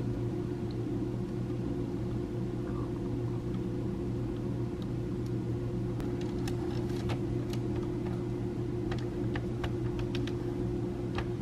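A steady low mechanical hum, with light scattered clicks and taps as the plastic instrument-cluster parts and new adhesive gauge faces are handled and pressed into place, most of them in the second half.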